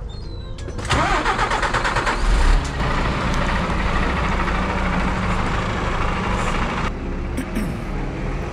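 A DAF XF lorry's straight-six diesel is cranked on the starter about a second in and catches with a low burst, then runs at a steady idle. Near the end a quieter engine sound follows as the lorry moves off.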